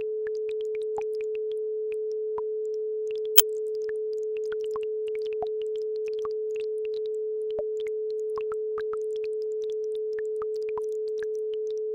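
A steady pure tone at the 432 Hz base frequency, unbroken rather than pulsing, over a babbling brook's scattered bubbling plinks. There is one sharper click about three and a half seconds in.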